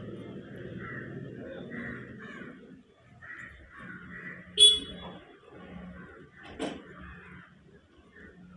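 A deaf girl's voice, making unintelligible speech sounds as she answers in sign language. About halfway through there is one short, loud, harsh cry.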